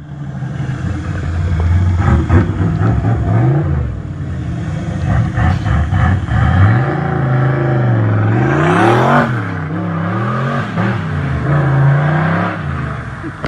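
Car engine revving repeatedly, its pitch climbing and dropping several times, with a sharp rising whine about nine seconds in.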